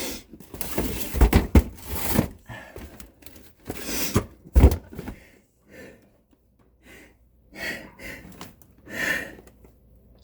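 Thumps, knocks and scuffing of someone crawling and shifting about in a cramped crawl space, the loudest knocks about a second in and again about four and a half seconds in, then a few quieter breaths.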